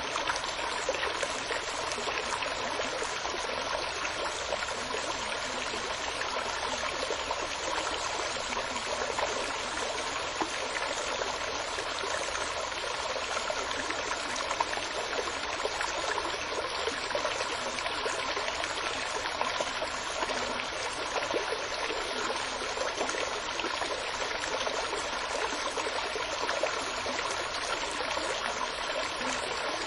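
Running water flowing steadily, an even, unbroken rush with a fine trickling texture.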